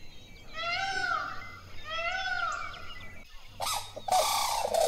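Peacock calling twice: loud, pitched, arching calls a little over a second apart. After a short break about three and a half seconds in, a louder, harsher run of bird calls with rattling notes begins.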